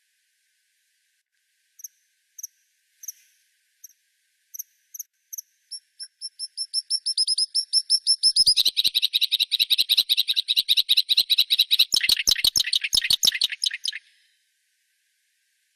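A songbird singing: a few spaced high notes that speed up into a long, fast trill, which stops suddenly near the end.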